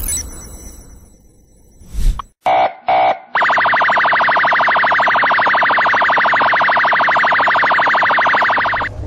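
Electronic alarm buzzer sound effect: a thud about two seconds in, two short beeps, then a loud, rapidly pulsing buzz lasting about five and a half seconds that cuts off suddenly.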